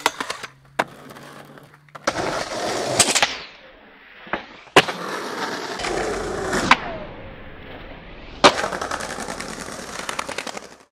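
Skateboard wheels rolling on pavement, with several sharp wooden clacks of the board popping and landing. The loudest clacks come about five seconds and eight and a half seconds in.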